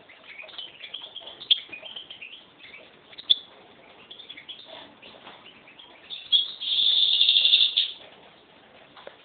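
Caged hybrid finch (a 'mixto') singing: rapid high twittering with a couple of sharp piercing notes, then a loud, steady trill lasting about a second and a half near the end.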